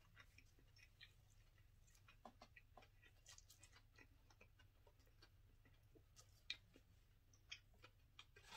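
Faint close-up chewing of a plant-based chicken sandwich: scattered soft mouth clicks and crunches, with one sharper click about six and a half seconds in, over a low steady hum.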